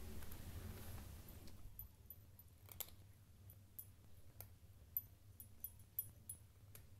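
A cat crunching dry kibble from a bowl: faint, irregular little clicks and crunches that begin about two seconds in.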